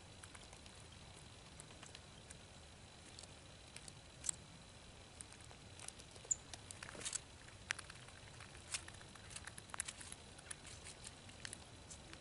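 Gray squirrel rummaging and eating in a plastic tray of mixed birdseed: faint scattered clicks and rustles of seeds, sparse at first and busier from about halfway on.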